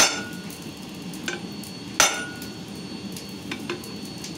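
Hand hammer striking a round steel rod held across a red-hot steel bar on a steel-plate anvil: two hard blows about two seconds apart, each with a short metallic ring, and fainter clinks between them.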